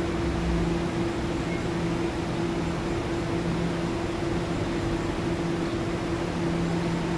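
Taiwan Railways Tze-Chiang express electric multiple unit pulling slowly out of the station: a steady electrical hum in two tones, the lower one cutting in and out, over an even rush of noise.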